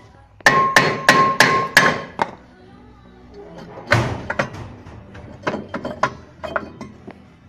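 Hammer blows on a rear brake disc to knock it loose from the hub: a quick run of about six ringing metal strikes in the first two seconds, then one hard knock and several lighter ones.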